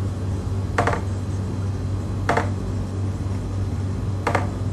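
Marker pen writing on a whiteboard: three short scratchy taps of the tip, spaced out, over a steady low hum.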